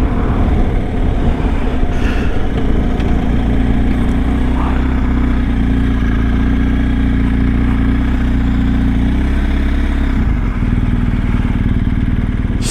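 BMW R1250 GS motorcycle's boxer-twin engine running at a steady cruise while riding, heard with wind noise on the rider's microphone. The engine note changes about nine to ten seconds in.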